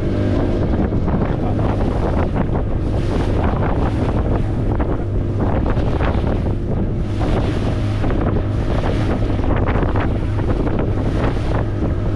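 Wind buffeting the microphone over a steady low engine hum and rushing water.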